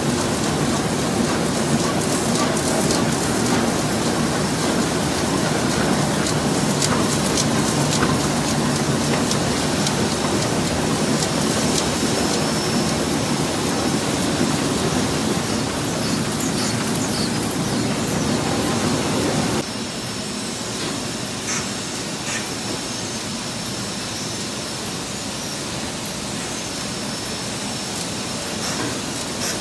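Heidelberg Speedmaster SM102 eight-unit perfecting sheetfed offset press with coater, running: a steady, dense mechanical rattle with fine clicking. About two-thirds of the way through, the sound drops suddenly to a quieter, thinner version of the same steady noise.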